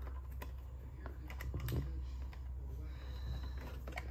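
Hard plastic parts of a Cricket talking doll's cassette door and housing being handled and pressed together, giving scattered light clicks and taps, over a low steady hum.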